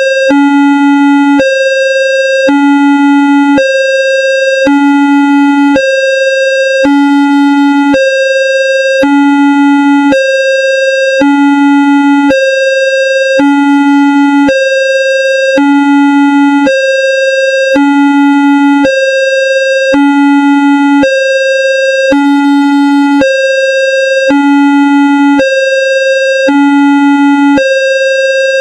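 Electronic railway level-crossing alarm, self-made as a sound effect: two steady tones, one low and one about an octave higher, alternating about once a second.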